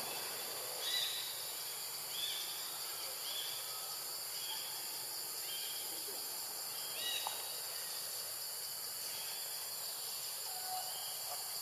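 Forest ambience: a steady, high insect drone, with short high chirping calls repeating every second or so.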